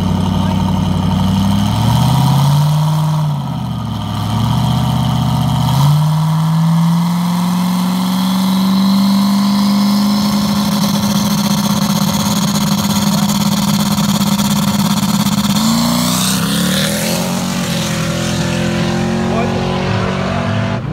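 Twin-turbo Coyote 5.0 V8 Mustang held at steady revs on the line, the engine note dipping and coming back a couple of times in the first few seconds. About sixteen seconds in it launches on a solo bye run, revs climbing sharply as it pulls away.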